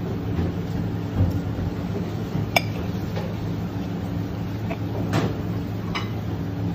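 Knife and fork clinking against a plate three times while cutting into food, over a steady low mechanical hum.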